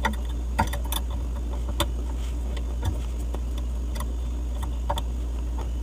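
Light metal clicks and taps, scattered irregularly, as a hex key works a bullet piercing valve clamped on a refrigerator's copper suction line, over a steady low hum.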